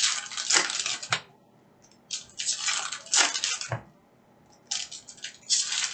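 Foil trading-card pack wrappers crinkling and tearing as packs of Upper Deck hockey cards are ripped open by hand, in three bursts with short quiet gaps between.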